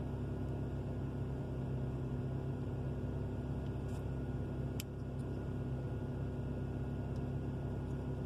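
Steady low mechanical hum with a few faint light clicks about four and five seconds in.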